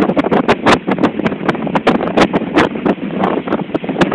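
Strong wind blasting the phone's microphone over heavy seas breaking and rushing along a bulk carrier's hull, with many sharp crackles from the gusts hitting the microphone.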